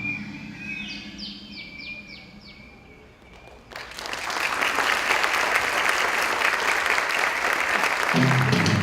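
A bird calls a quick run of about five short descending chirps, then a steady rushing noise starts abruptly about four seconds in and holds.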